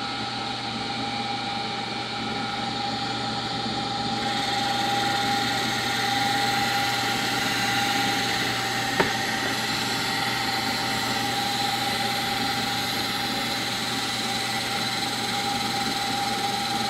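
CNC milling machine spindle spinning an aluminum pulley while a fixed lathe tool bit turns a crown on its rim: a steady machine hum with a high whine, getting hissier about four seconds in. One sharp tick near the middle.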